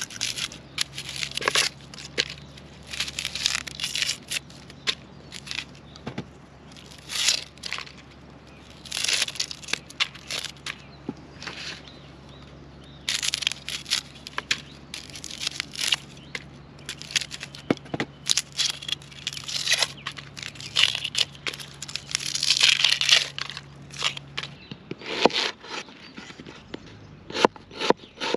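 Dry red onion skins crackling and tearing as they are peeled off with a knife, in irregular bursts. Near the end, quick knife strokes on a wooden cutting board.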